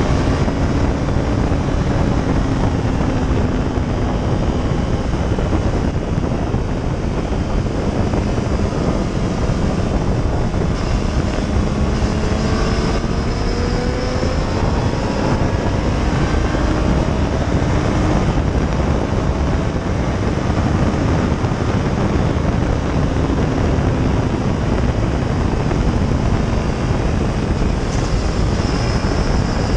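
Sport motorcycle engine running hard at track speed, its pitch rising and falling, under heavy wind noise on the microphone.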